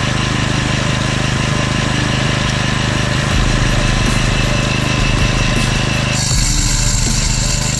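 Small engine of concrete-finishing equipment running steadily. About six seconds in the sound shifts, with a higher hiss coming in.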